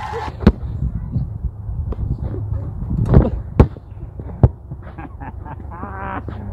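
A basketball bouncing on a hard outdoor court: a few separate sharp bounces, about half a second in and again three and a half and four and a half seconds in, over a steady low rumble.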